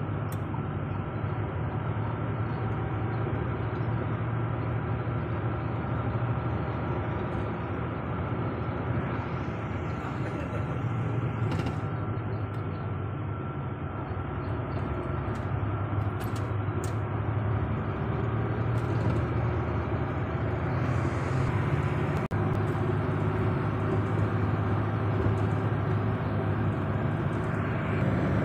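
Truck engine and road noise heard from inside the cab while driving, a steady low drone.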